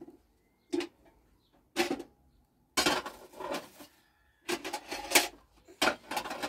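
Dishes and pots clattering in about five short bursts, the middle ones longer, with quiet gaps between them.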